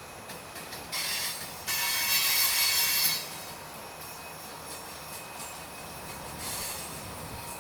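Freight train cars rolling past, with loud bursts of high-pitched wheel squeal about a second in and again from about two to three seconds in, then a steadier rolling noise.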